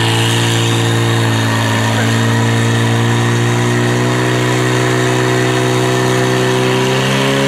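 Portable fire pump's engine running flat out at steady high revs, under load as it drives water through the attack hoses; the revs climb a little near the end.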